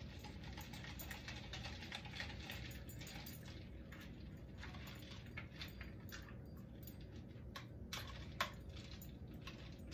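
Ice cubes clinking against the side of a pitcher as a long spoon stirs the punch: faint, irregular clicks and taps throughout.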